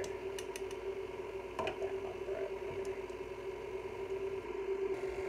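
KitchenAid Classic Plus stand mixer's motor running steadily as it drives the fruit and vegetable strainer attachment, a constant even hum, with a few light clicks in the first two seconds.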